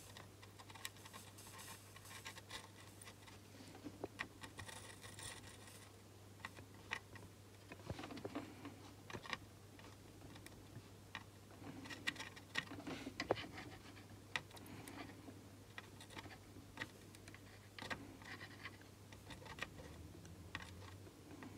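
Faint scratching and scattered small clicks of soldering iron tips being drawn along the legs of a surface-mount processor chip during drag soldering, over a low steady hum.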